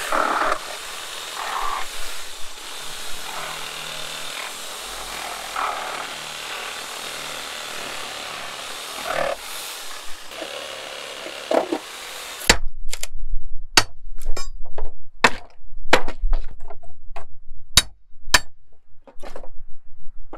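A saw cutting steadily through pallet wood for about twelve seconds. Then about a dozen sharp, loud hammer blows on a pry bar, knocking a pallet apart to salvage its boards.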